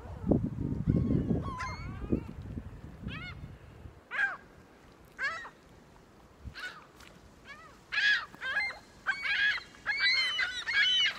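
Gulls calling, scattered cries at first, then a dense run of overlapping calls over the last few seconds; the birds are upset by a person near them. A loud low rumbling noise fills the first few seconds.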